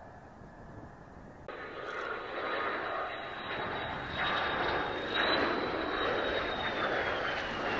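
Mitsubishi F-2 fighter's single F110 turbofan passing low and close with its gear down. About a second and a half in, the jet noise gets much louder, with a high whine over the roar that holds steady and then drops in pitch as the jet goes by.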